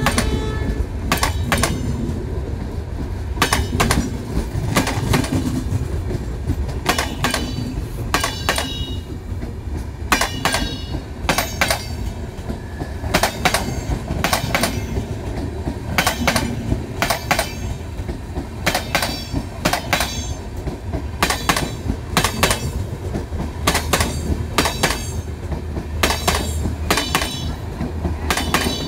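Passenger coaches of a train rolling past close by, their wheels clacking over rail joints. The clacks come again and again, often in quick pairs, over a steady low rumble.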